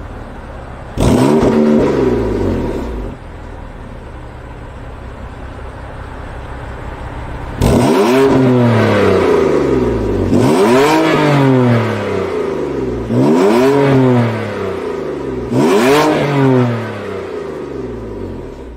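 BMW M3 F80's twin-turbo inline-six engine revved hard five times, each rev jumping up quickly and falling back to a steady idle between blips.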